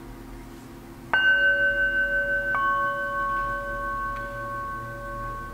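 Two metal singing bowls struck with a wooden mallet, about a second and a half apart. Each rings on as a clear, steady tone with a long, slow fade, and the second adds a new pitch to the first.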